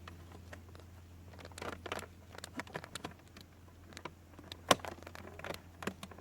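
Light clicks and knocks of a robotic pool cleaner's plastic filter housing being handled, with one sharp snap about three-quarters of the way through as a part is seated or latched.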